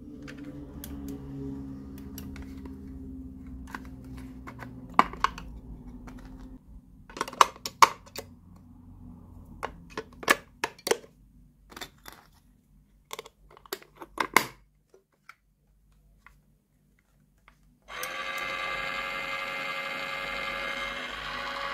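Sharp plastic clicks and knocks as AA batteries are fitted into a toy washing machine's battery compartment. About eighteen seconds in, the toy's small electric motor starts and runs with a steady whir.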